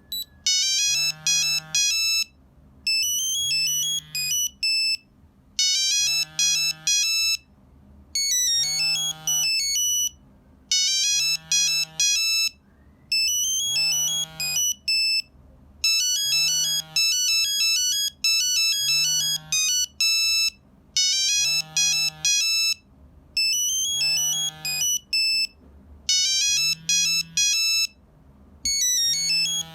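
Nokia 3395 mobile phone playing a monophonic ringtone: a short melody of fast electronic beeps, repeated over and over with brief gaps between the phrases.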